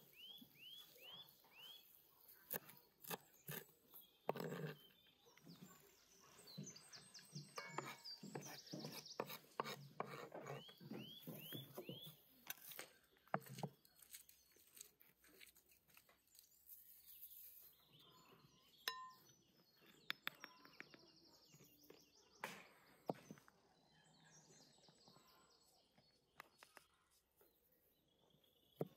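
Faint outdoor ambience: small birds chirping in short, quick series of calls, with scattered light clicks and taps from spoons and clay pots being handled.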